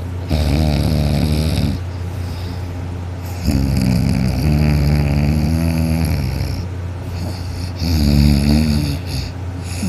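A heavy sleeper snoring loudly: three long, rattling snores a couple of seconds apart, the middle one the longest.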